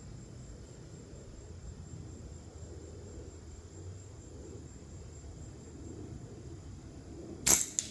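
A single gunshot near the end, short and sharp, followed a fraction of a second later by a fainter second crack.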